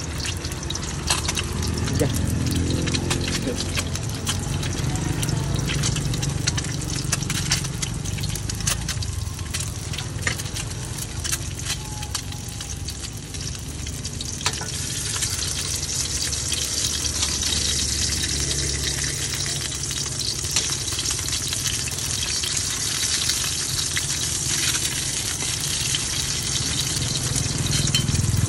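An egg frying in hot oil in a steel wok, a steady sizzle full of small crackles and pops. The sizzle gets louder about halfway through.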